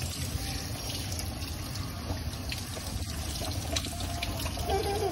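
Water spraying steadily from a hand-held pistol-grip hose nozzle onto a dog's wet coat in a tiled wash tub.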